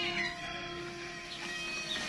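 Goat bleating, one long drawn-out call.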